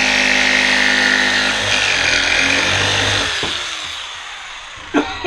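Corded jigsaw cutting through plywood, its reciprocating blade buzzing steadily; about three seconds in the motor is switched off and runs down. A sharp knock comes just before the end.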